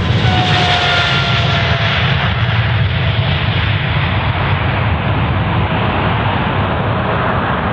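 Boeing 777 freighter's twin GE90 turbofan engines at takeoff thrust as it lifts off and climbs away: a loud, steady jet roar with faint whining tones that slowly drop in pitch.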